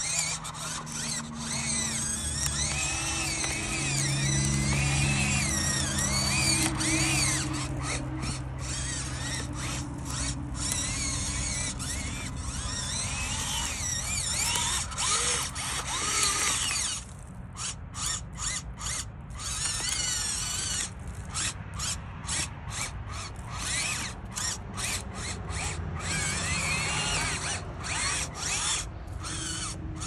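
Radio-controlled Caterpillar bulldozer's electric track motors and gearboxes whining as it pushes snow, the pitch rising and falling with the throttle. In the second half the whine keeps cutting out and starting again in many short stops.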